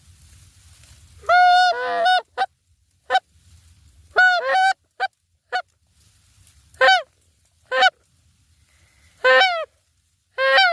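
Canada goose honks and clucks: about a dozen loud, separate calls at irregular spacing. Each one bends up then down in pitch, and some come in quick doubles.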